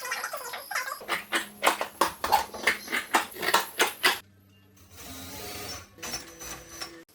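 Rhythmic clicking, about four sharp clicks a second, that stops about four seconds in, followed by a short soft hiss.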